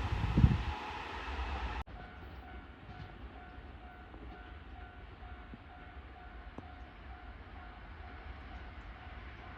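A train running past, with a thump about half a second in, cut off abruptly a little under two seconds in. Then a Japanese level crossing alarm dings steadily about twice a second over a low rumble.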